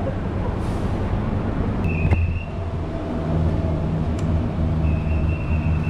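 A vehicle engine running steadily, with a sharp click about two seconds in and a thin high tone twice, briefly and then for about a second near the end.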